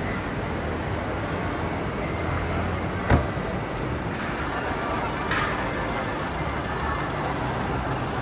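Street traffic: a steady rumble of passing motor vehicles, with one sharp knock about three seconds in.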